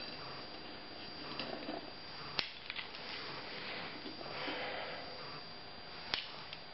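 Faint handling noise as two small metal C-clamps are unscrewed and lifted off a hand truck wheel's steel rim, with two sharp clicks, one about two and a half seconds in and one near the end.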